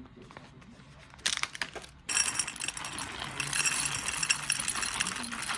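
Rattling and clinking of small hard objects. It comes in a short burst, then a dense, continuous clatter from about two seconds in.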